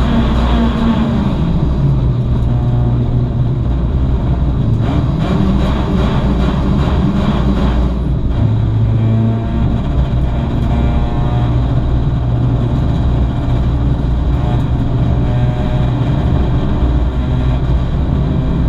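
VW Lupo GTI race car's 1.6-litre four-cylinder engine running under way, heard from inside the caged cabin. The engine note drops about a second in and again about eight seconds in, then holds fairly steady.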